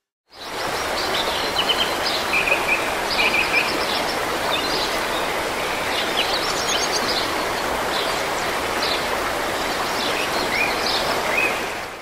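Small birds chirping and singing over a steady rushing background noise, fading in just after the start and fading out at the end.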